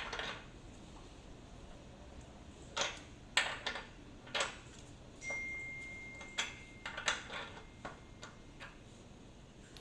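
Scattered metal clicks and knocks of hand tools working on an exercise bike's crank as it is being removed. A thin, steady high ring sounds for a second or two midway.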